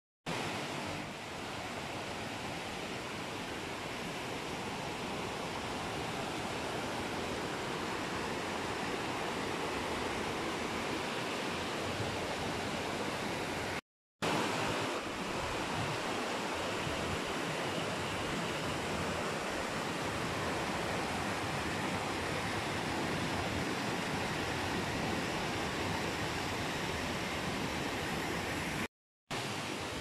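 Mountain stream rushing over rocks: a steady, even rush of water, cut by a brief silence about halfway through and again near the end.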